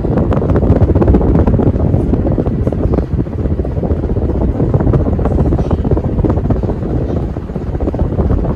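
54-inch Hunter Osbourne ceiling fan running, its moving air buffeting the microphone as a loud, steady, rough rumble with crackles.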